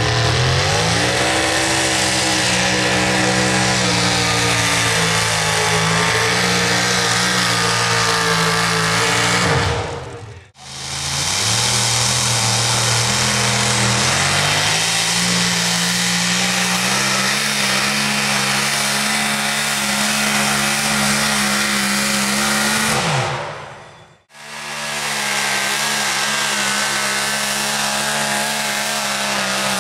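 Pulling truck engine at full throttle during a tractor-pull run, its pitch climbing and then holding high before falling away. The sound drops out twice, about ten and twenty-four seconds in, each time followed by another run at full throttle.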